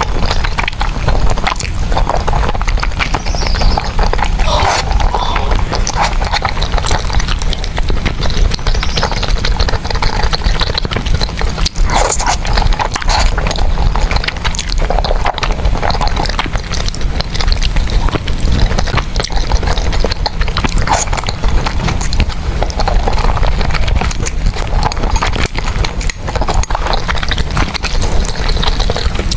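Close-up eating sounds: chewing and mouth clicks in a dense, unbroken stream of quick clicks.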